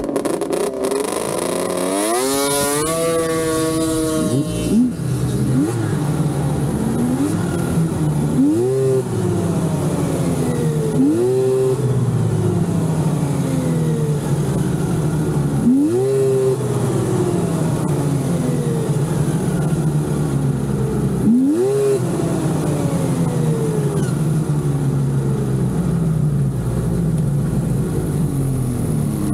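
Snowmobile engine idling and being revved by hand: one long rev climbing for a couple of seconds near the start, then several short throttle blips spread apart, each rising sharply and falling back to idle.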